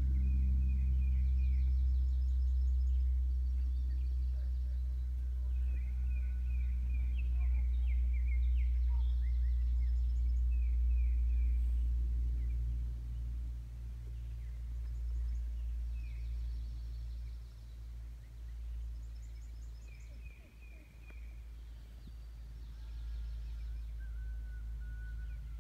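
Deep, steady propeller drone of a Lockheed C-130H Hercules's four Allison T56 turboprop engines passing high overhead, fading from about halfway through as the plane moves away. Small birds chirp in short repeated phrases over the drone.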